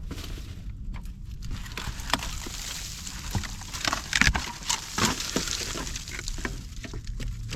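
Dry leaves and twigs crackling and snapping irregularly, with a cluster of louder snaps around the middle.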